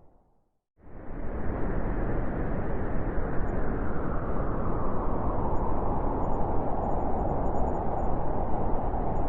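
Blizzard wind, a dense steady rushing noise. After a brief silence it cuts in abruptly just under a second in, then runs on steadily.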